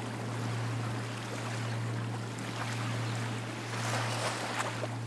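Small waves of choppy bay water washing and lapping, with a louder rush of water about four seconds in, over a steady low hum.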